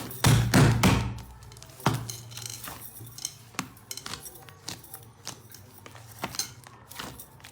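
Slime being squeezed and poked close to the microphone: a loud burst just after the start, then scattered sharp clicks and pops.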